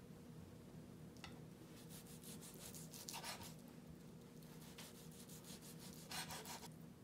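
Ceramic knife sawing back and forth through a seared steak on a wooden cutting board: faint rasping strokes in two bouts, the second stopping near the end.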